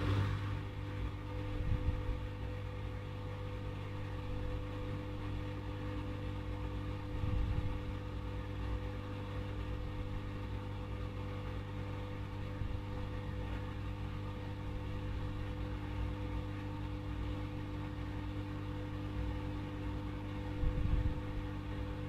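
Haier I-Pro Series 7 (HW80-B14979) front-loading washing machine in its wash cycle: a steady motor hum with laundry and water sloshing in the drum. Louder swishes come about two seconds in, around seven seconds in, and near the end.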